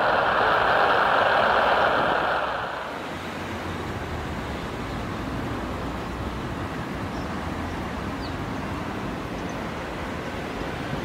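Jet airliner engine noise, a loud even rush that cuts off about three seconds in, leaving a steady, quieter rumble of wind and background noise.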